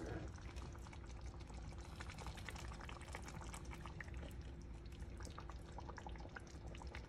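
Faint wet sounds of thick chicken masala curry being spooned out of a frying pan, with many small irregular clicks and pops from the sauce and spoon, over a faint steady hum.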